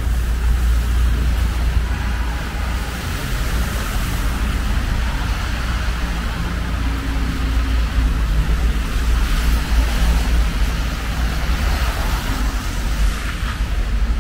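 City street traffic: cars passing with a steady low rumble and tyre noise.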